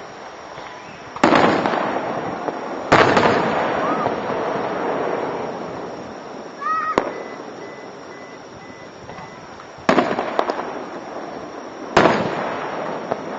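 Aerial fireworks shells bursting: four loud bangs a few seconds apart, each trailing off in a long rolling echo. About halfway through, a short rising whistle leads into a smaller pop.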